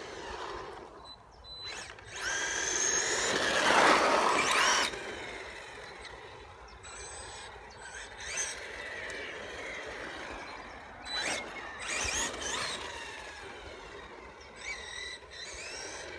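Electric motor and drivetrain of a Maverick Strada RX RC rally car whining in bursts of throttle, the pitch gliding up and down, with the longest, loudest burst about two to five seconds in and shorter ones near the middle and the end. The drivetrain runs smoothly on its freshly cleaned and greased bearings.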